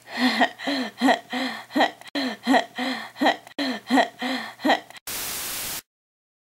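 A single voice laughing in a quick run of short "ha"s, about three a second. Near the end it cuts to a brief burst of TV static, the sound of the channel being changed, then drops out.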